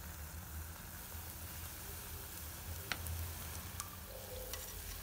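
Small dough balls (bolinhos de chuva) deep-frying in hot oil: a faint, steady sizzle with a couple of small pops.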